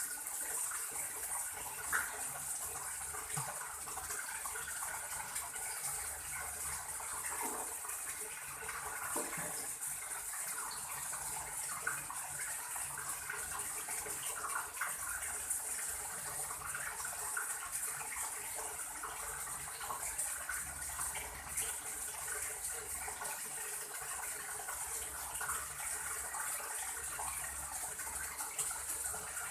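Water running steadily, a continuous rushing stream, with small irregular splashes and knocks, as when an animal is being washed.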